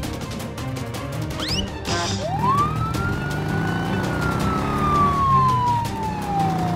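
Police siren wailing: it rises quickly to its top about two seconds in, then falls slowly over about four seconds, and the next rise begins near the end.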